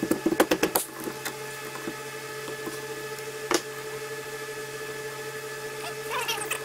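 Hand ratchet clicking rapidly for under a second as it works a bolt on a Bosch CP4 injection pump, followed by a few single clicks and one sharp metallic tick about three and a half seconds in, with a brief squeaky scraping near the end. A steady hum runs underneath.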